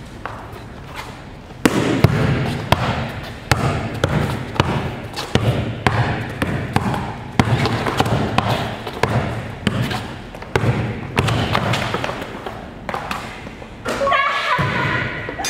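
A basketball dribbled hard on an indoor court's sport-tile floor, repeated sharp bounces about twice a second during a one-on-one drive. Near the end a short run of ringing tones comes in.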